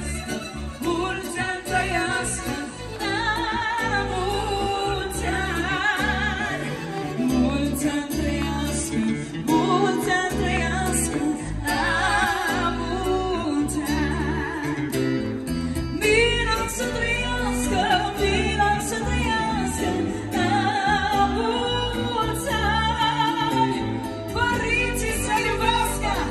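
Live band playing party music, with a singer singing a wavering, ornamented melody over a strong, steady bass beat.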